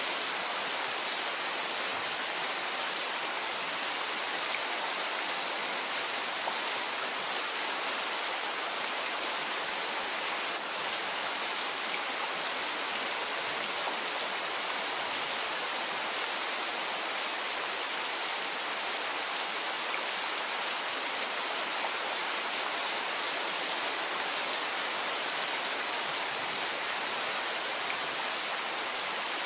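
Steady heavy rain: a dense, even hiss with no thunder.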